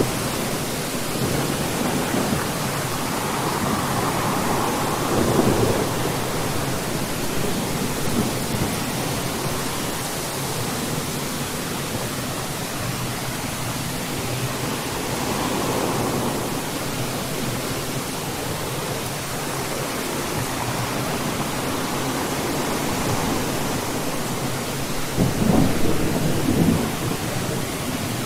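Steady rain falling through a thunderstorm, with thunder rumbling several times. The loudest rumble comes near the end.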